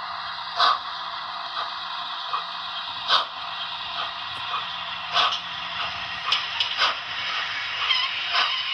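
HO scale Trix Flying Scotsman model train running along the track: a steady hissing running noise with a faint low hum, broken by about six sharp, irregularly spaced clicks.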